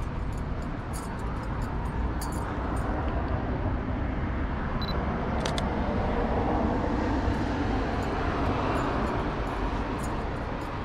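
Steady street and traffic noise, swelling in the middle as a car passes along the road. About five and a half seconds in, a mirrorless camera's shutter clicks once as a photo is taken.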